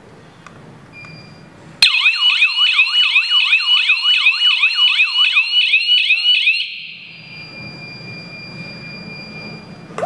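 W4B home alarm system's siren, set off by the SOS panic button: a loud warbling wail sweeping up and down about two and a half times a second. It starts suddenly about two seconds in and cuts off about five seconds later, leaving a faint steady high tone.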